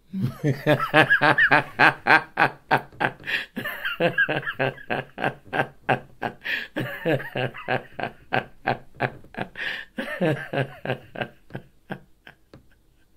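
A man laughing heartily in a long, unbroken run of rapid 'ha-ha' pulses, about four a second. It starts abruptly and thins out near the end.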